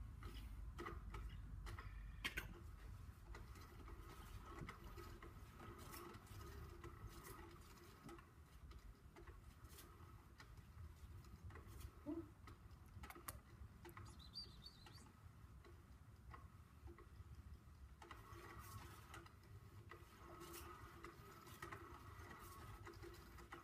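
Faint, scattered light taps and pattering of a cat batting and chasing a toy, over a faint steady hum.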